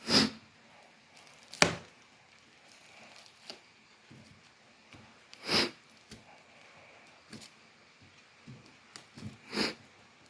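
Packaging being handled during an unboxing: four short crackling, rustling bursts and a few small clicks and knocks, with quiet stretches between them.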